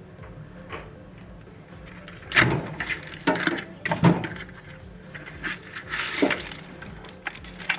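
A metal ratchet being handled: a few irregular knocks and clinks with short rattles, loudest about two and a half seconds in and again near four seconds.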